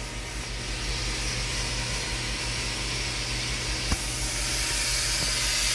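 Tsugami BO325II CNC Swiss lathe running its live tools: a steady hiss over a low electrical hum that grows louder, with a single click about four seconds in.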